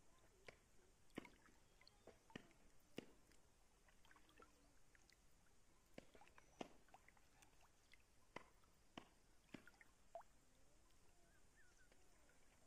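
Near silence with faint, irregular water drips and small clicks.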